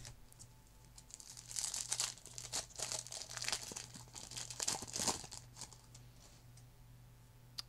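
Foil wrapper of a hockey card pack crinkling and tearing as the pack is pulled from the box and ripped open: a run of crackly rustles starting about a second in and dying away after about five seconds.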